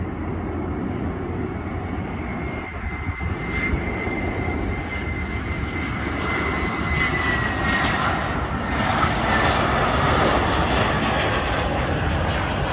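Airbus A320-family twin-engine jet airliner on final approach, passing low overhead. Its engines give a steady rush of noise with a high whine that drops slightly in pitch about seven seconds in, and the sound grows louder near the end as the jet comes over.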